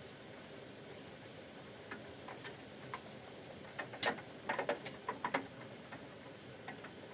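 Hailstones tapping irregularly on a window pane: scattered single ticks, then a quick flurry of hits about four to five and a half seconds in, over a steady faint hiss.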